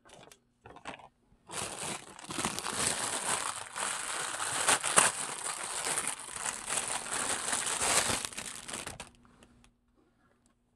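Close, crinkling rustle, as of something being handled against the microphone. It starts about a second and a half in and stops abruptly about nine seconds in, after a few short clicks at the start.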